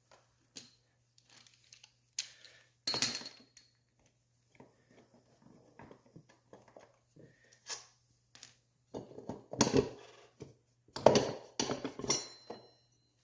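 Steel hand tools and bolts clinking and knocking in irregular metallic taps, a few with a brief ring, while the front brake caliper of an ATC250R three-wheeler is being unbolted. The loudest clanks come about three seconds in and in a cluster around ten to twelve seconds.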